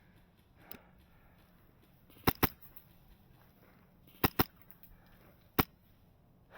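Paintball gun firing sharp shots: two quick double shots about two seconds apart, then a single shot about a second later, with a fainter shot about a second in.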